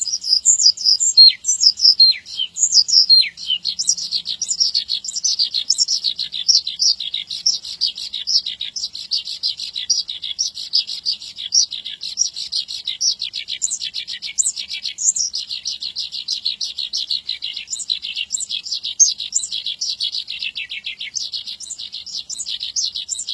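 Branjangan (Australasian bush lark) singing a long, fast, unbroken stream of chirps and trills, with a few downward-sliding notes in the first few seconds.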